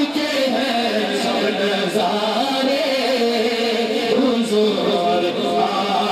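Male voice singing a naat into a microphone in long, drawn-out melodic phrases, the pitch sliding and held without a break.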